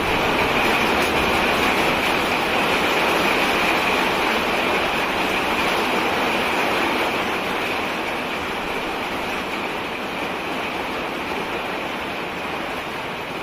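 Steady rainfall, a dense even hiss, easing slightly in loudness about halfway through.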